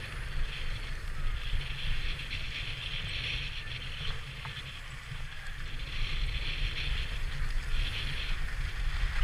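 Skis sliding and scraping over packed snow, a steady hiss that swells and fades a few times, under a low rumble of wind buffeting the microphone as the skier moves.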